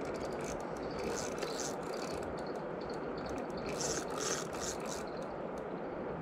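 Fishing reel clicking in two bursts of rapid ratcheting, over the steady rush of a river.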